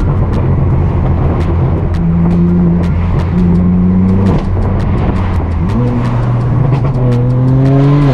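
Straight-piped BMW M4 F82's twin-turbo inline-six, heard from inside the cabin while driving. The engine note holds steady, drops about four seconds in, then climbs steadily as it accelerates in the last couple of seconds.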